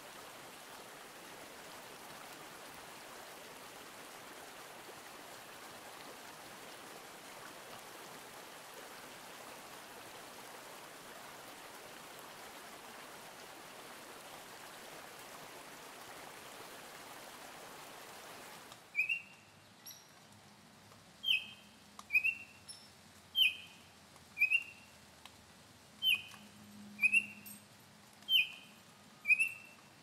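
Steady rushing of a stream that cuts off about two-thirds of the way through. It gives way to a Baltimore oriole's short, clear whistled notes, about one a second and often in pairs.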